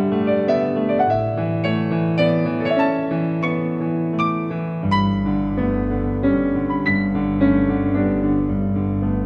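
Background piano music, notes struck about twice a second, with a deeper bass coming in about halfway through.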